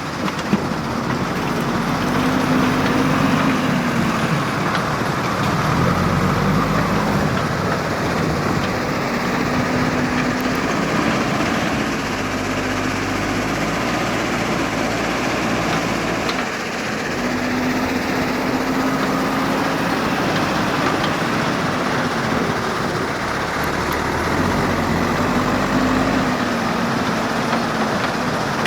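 JCB 3DX backhoe loader's diesel engine running under load, its pitch rising and falling again several times as it revs up and settles back through loading cycles.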